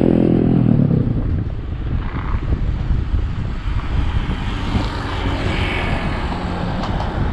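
A motor vehicle passing, its engine note fading away within the first second, followed by a steady low rumble of traffic.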